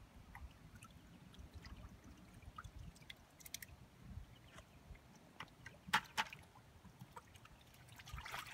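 Water dribbling and sloshing as a bucket of live fish is dipped into a lake and tipped out, with small splashes throughout and two louder strokes about six seconds in.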